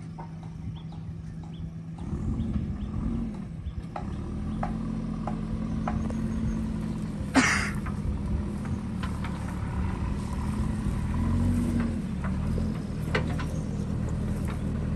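JCB 3DX backhoe loader's diesel engine running, picking up load about two seconds in, with scattered knocks and one loud sharp clank about halfway through as it works landslide rock and debris.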